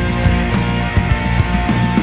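Rock music with drums and guitar over a steady beat.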